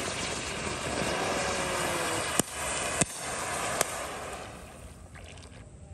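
Size-5 conic fountain firework hissing as it burns, with three sharp cracks a little past two, three and nearly four seconds in. The hiss dies away near the end as the fountain burns out.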